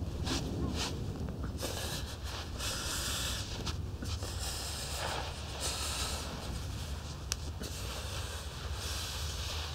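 A man's heavy breathing, swelling and fading in rasps of about a second each, over a low steady hum, with one sharp click about seven seconds in.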